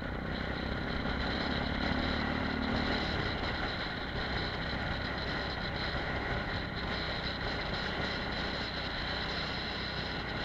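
Apollo RX250 250 cc supermoto motorcycle engine running steadily on the road, with wind rushing over a helmet-mounted camera. A steady low engine tone stands out in the first few seconds, then merges into the wind and engine noise.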